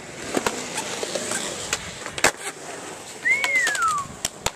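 Skateboard on concrete: wheels rolling with a string of sharp clacks, and one loud board impact a little over two seconds in. Near the end a short high tone slides down in pitch, followed by a quick run of clacks.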